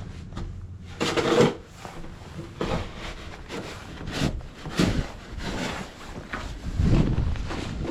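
Footsteps crunching through deep snow, a steady walking pace of roughly one step every two-thirds of a second.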